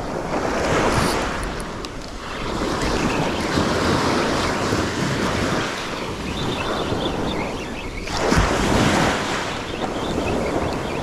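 Surf breaking and washing up the beach, with wind buffeting the microphone. The noise swells and eases in long surges as waves come in, the loudest at about eight and a half seconds.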